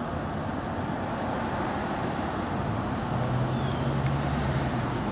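Steady outdoor rumble of vehicle engines with some wind noise. A low, even engine hum swells about two and a half seconds in, then eases off near the end.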